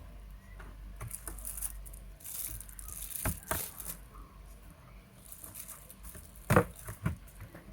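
Scattered light clicks and taps, with two louder knocks about half a second apart near the end.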